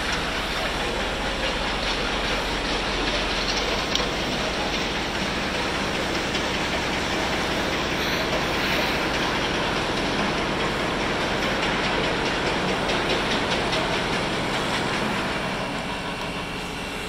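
Steady street noise by a light-rail line, with a tram running along the track.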